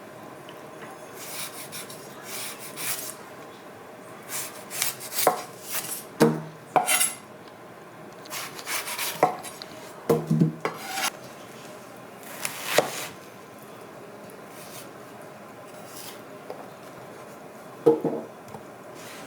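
Kitchen food preparation: irregular scraping and rubbing, with a few sharp knocks on a cutting board.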